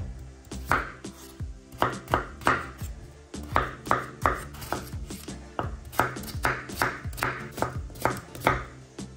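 Knife chopping food on a cutting board, a run of sharp strikes at about two a second, over background music.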